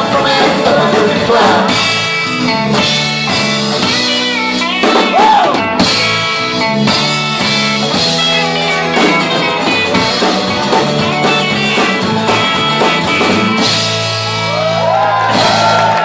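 Live rock band playing loudly on electric guitars, bass guitar and drum kit.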